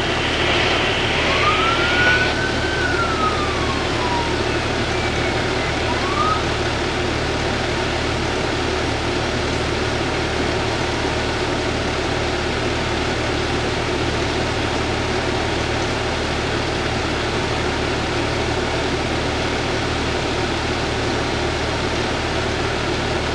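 An emergency vehicle siren sweeps up and down once in the first few seconds, then gives a short rising chirp about six seconds in. Under it, a vehicle engine idles steadily.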